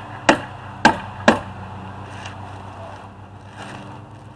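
Hammer tacker stapling house wrap to wooden wall framing: three sharp strikes in about a second and a half, then no more.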